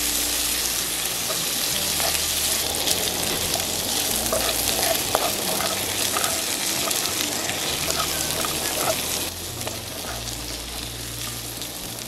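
Shrimp, garlic cloves and cherry tomatoes sizzling in a frying pan, stirred and scraped with a wooden spatula. The sizzle eases a little about nine seconds in.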